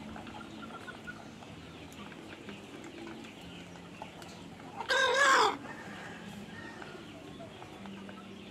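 A flock of chickens clucking, with one loud, wavering call from a single bird about five seconds in.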